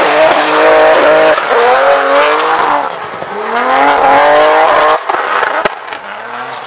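Drift car sliding through a corner, its engine revving hard in repeated rising pulls while the spinning rear tyres screech and smoke. The sound drops away about five seconds in, and there is a sharp click shortly after.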